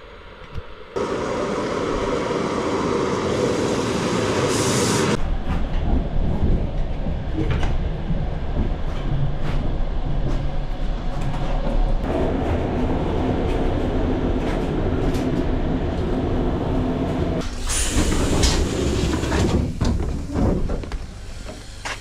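Passenger train, heard from the platform and from inside a carriage: a steady low rumble of the train running, with short bursts of hiss about four and eighteen seconds in.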